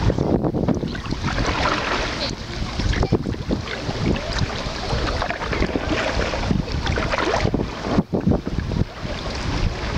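Wind buffeting the microphone on a moving canoe, over water splashing and gurgling against the hull with irregular small splashes.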